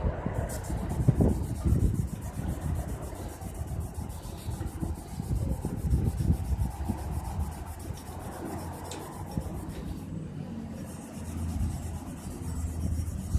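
2000-grit sandpaper wet-sanding a chrome-plated steel cart handle by hand, rubbing back and forth in uneven strokes to take out rust pits.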